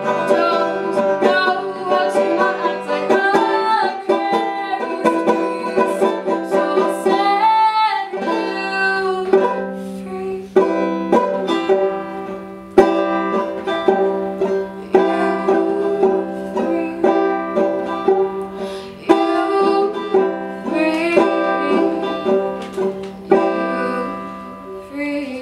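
Banjo picked solo: a run of plucked notes over a steady ringing low note, breaking off briefly about a third of the way through before the picking resumes, then winding down near the end.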